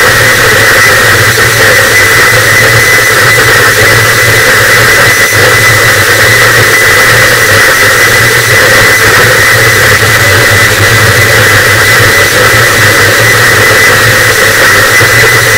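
Harsh noise wall: a loud, unchanging wall of distorted static with a low rumble underneath and a thin steady whistle high in the mix.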